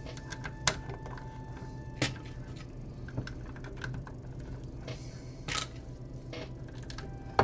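Plastic LEGO pieces clicking and clattering as they are picked up and pressed onto the build, with a few sharp clicks and a couple of longer rattles about five seconds in.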